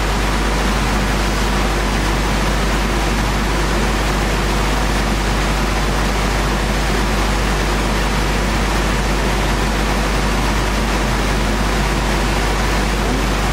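Woodworking machinery running steadily: a loud, even hiss with a constant low hum and no change in pitch or rhythm.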